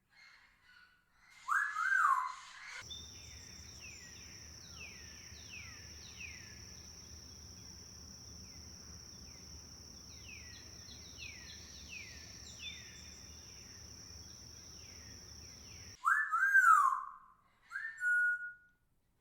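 Tropical birds calling: loud whistled notes that rise and fall, about two seconds in and again near the end. Between them comes a long run of short falling chirps, roughly one or two a second, over a steady high-pitched buzz.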